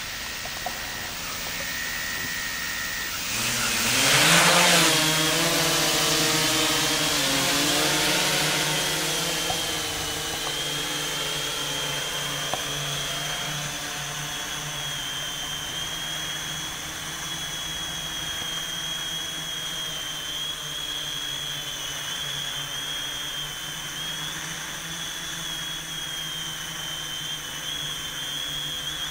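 Y6 hexacopter's six electric motors and propellers spinning up a few seconds in, rising in pitch with a loud rush of air as it lifts off the gravel. The propellers then settle into a steady hum with a wavering high whine as it flies.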